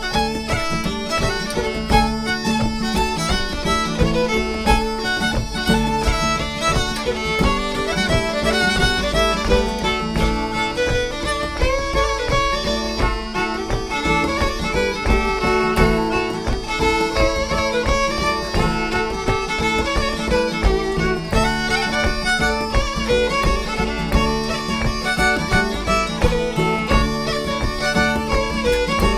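Live Celtic dance tune played at a brisk, even pace, the melody on fiddle and flute over guitar accompaniment and a steady bodhrán beat.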